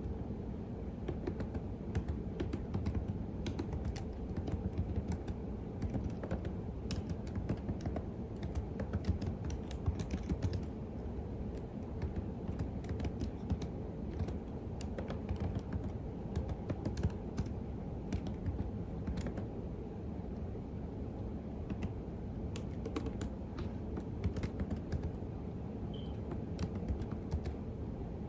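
Computer keyboard typing: a steady stream of irregular keystroke clicks over a low steady background hum.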